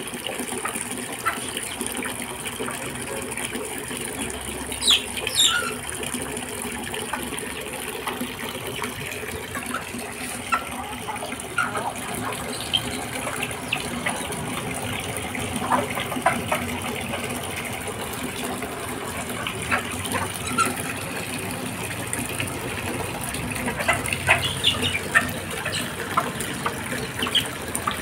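Water gushing steadily from a hose into a plastic tub, filling it. A few short, sharp sounds from the chickens and ducks feeding around it stand out over the flow, the loudest about five seconds in and near the end.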